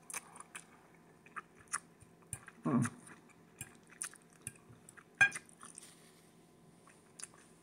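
A person chewing a mouthful of shrimp and noodles close to the microphone: soft wet smacks and small clicks. There is a short hum a little under 3 s in and a sharper click a little after 5 s.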